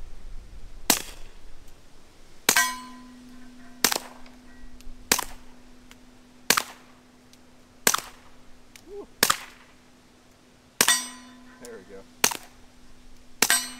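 Ruger LCP Lite Rack .22 LR pistol with an Odin Works Nav 22 suppressor (all six baffles) firing ten suppressed shots of Remington Thunderbolt, each about one and a half seconds apart, the slide cycling every round. Several shots are followed by a metallic ring from the steel target being hit.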